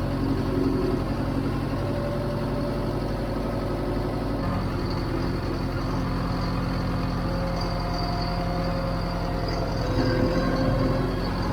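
Diesel engine of a John Deere 410 backhoe running steadily, its low note shifting slightly about four seconds in and getting a little louder near the end.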